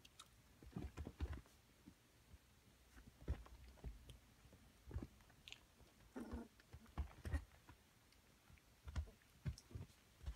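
Faint scuffling, soft thumps and mouthing of two-week-old Border Collie puppies wrestling clumsily on fleece bedding, in irregular short bursts.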